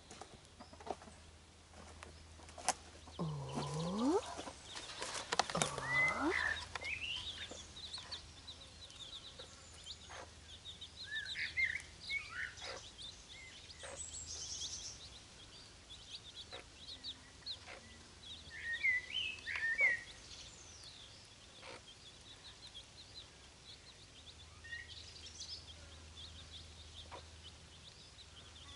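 Hen and her young chicks foraging: the chicks peep over and over in short high notes, with a few louder, longer calls that sweep down and back up about four to six seconds in.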